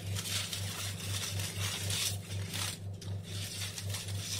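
Aluminium foil crinkling and tearing in irregular rustles as hands unwrap a foil parcel around a baked potato, over a steady low hum.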